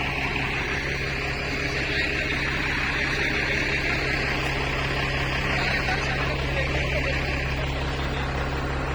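Motor grader's diesel engine running steadily, a constant low drone with a hiss over it.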